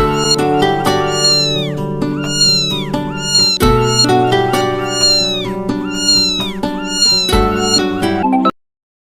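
Kitten meows pitch-shifted into a phone ringtone melody over steady backing chords, each meow falling in pitch at its end. The phrase repeats about every three and a half seconds and cuts off suddenly near the end.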